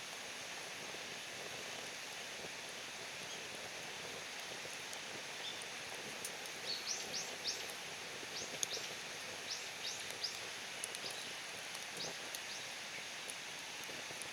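Outdoor woodland ambience with a steady hiss, and from about halfway in a small bird giving a quick series of short, high, falling chirps.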